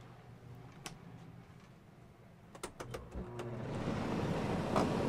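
A few sharp clicks, then an RV rooftop air conditioner starting up: the rush of its fan swells steadily over the last second and a half, over a steady low hum from the other unit already running.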